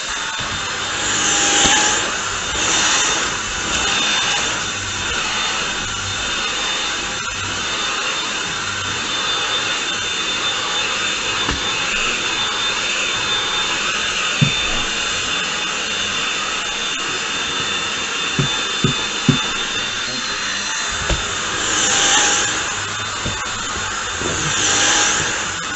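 Bush 25.2V cordless stick vacuum running steadily with a high whine, its motorised brush head pushed back and forth over the floor so the sound swells and fades. A few sharp clicks come about two-thirds of the way through.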